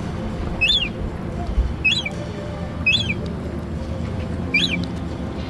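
A bird calling four times, at irregular intervals of one to two seconds. Each call is a short, high note that rises and then falls in pitch, over a steady low background rumble.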